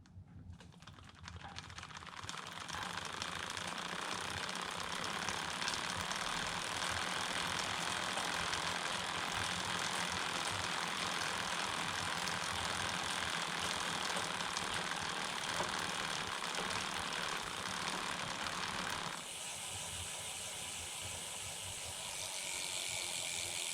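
Bicycle chain running over an idler pulley on a home-built bike, in the 39-tooth chainring and 11-tooth cog with the chain keeper removed: a steady, fast clattering whir that builds up over the first couple of seconds and drops somewhat in level about 19 seconds in.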